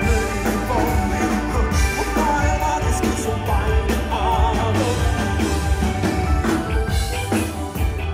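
A live rock band playing a song at full volume, with drum kit, bass guitar, electric guitars and keyboards, and a wavering melodic lead line on top.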